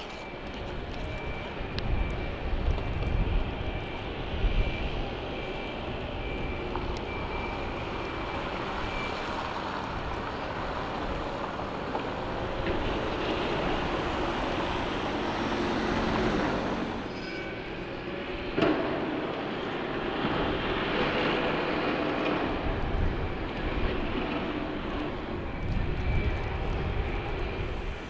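Outdoor street ambience in heavy snowfall: a steady rumble and hiss, with low gusts buffeting the microphone near the start and near the end. In the middle a car passes on the slushy road, its tyre hiss swelling and then cutting off sharply.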